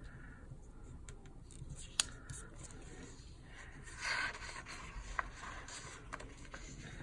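Paper planner stickers being handled and rubbed down onto a planner page: soft rubbing and paper rustling, with a sharp click about two seconds in and a louder half-second rustle about four seconds in.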